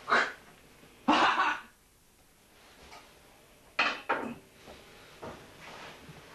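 Loud clattering knocks in three sudden bursts: one at the start, a longer one about a second in, and another near four seconds, with a few fainter knocks between them.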